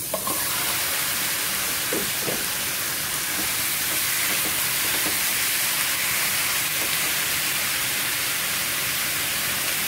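Raw chicken pieces sizzling steadily in a hot nonstick frying pan, the hiss starting abruptly as the meat goes in.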